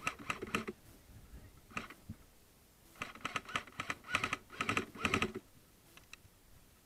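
Airsoft gun firing short bursts of rapid clicking shots: a few near the start, a single shot about two seconds in, then three quick bursts between about three and five seconds in.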